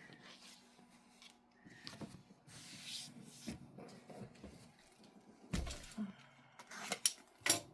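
Quilting fabric being handled and leafed through: soft rustling and rubbing of cloth, with a few sharper crinkles near the end.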